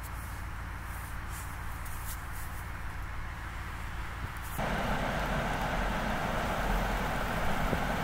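Blizzard wind buffeting the microphone: a low, steady rumble with scattered faint ticks. About four and a half seconds in it cuts abruptly to a louder, steady rush of a vehicle running in the storm.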